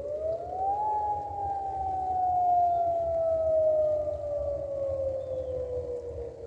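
A hydroelectric dam's emergency warning siren wailing during a scheduled test. Its pitch rises over about the first second, then falls slowly and evenly.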